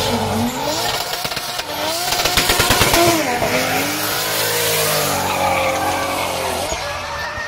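Drift car engine revving up and down under hard throttle, with tyres squealing through a slide. It is loudest about two to three seconds in, where the engine note turns into a rapid stutter.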